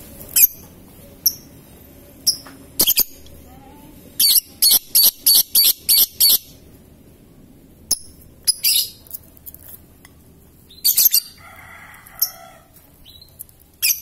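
Fischer's lovebirds giving sharp, high-pitched chirps: single calls at first, then a quick run of about eight calls, roughly four a second, around four seconds in, then scattered calls again.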